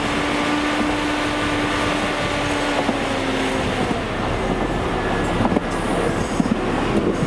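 BOSS railcar mover running along the rails: a steady engine and rolling noise with a faint whine that fades about halfway through. A few sharp clicks and knocks of steel wheels on the track come near the end.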